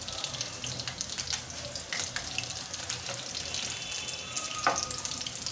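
Batter-coated Bombay duck fillets frying in hot oil: a steady sizzle full of small crackling pops. Near the end a wooden spatula knocks and scrapes against the pan once as the pieces are turned.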